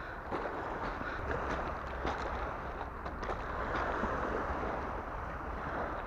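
Wind on the microphone and small waves washing onto a pebble shore, with a few faint scattered clicks.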